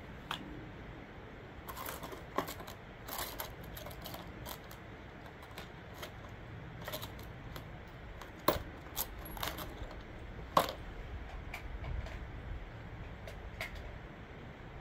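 Scattered small metallic clicks and taps from a rifle, its magazine and cartridges being handled on a shooting bench, with two sharper clicks a little past the middle.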